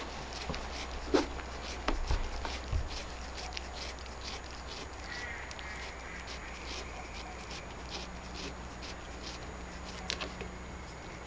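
Cat chewing cucumber: a run of small, wet crunching clicks, with a few louder knocks in the first three seconds.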